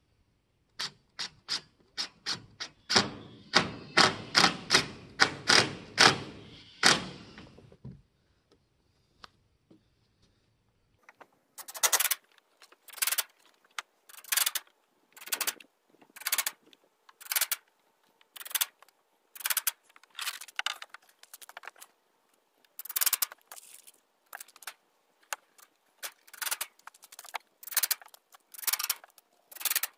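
Cordless drill/driver driving screws into the 1x2 wooden frame: a quick run of short rattling bursts over the first several seconds, then after a pause a longer series of sharp, clacking bursts about one a second.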